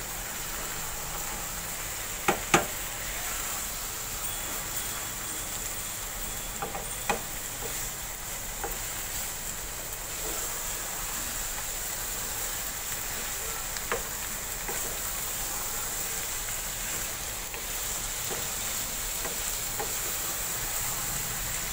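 Radish and spinach sabzi sizzling steadily in oil in a nonstick wok as it is fried down and stirred with a wooden spatula. A few sharp knocks of the spatula against the pan, two close together about two and a half seconds in and more later.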